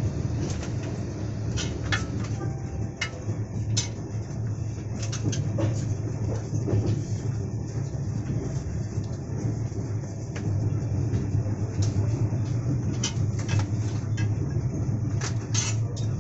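Passenger train running, heard from inside the coach: a steady low rumble with frequent, irregular clicks and clatters.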